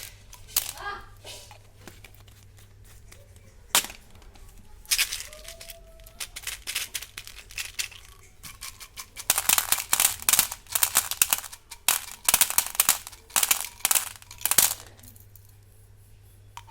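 Plastic Gems candy wrappers crinkling and tearing, in a short burst about five seconds in and a longer run of crackling from about nine to fifteen seconds.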